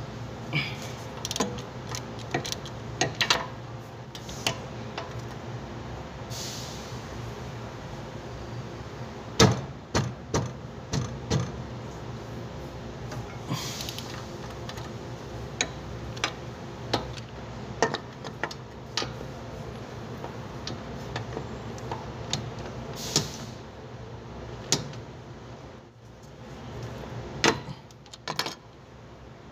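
Scattered metallic clicks and knocks of a socket wrench and spanner working on the rear wheel bearing hub bolts, a few of them sharper and louder, over a steady low hum.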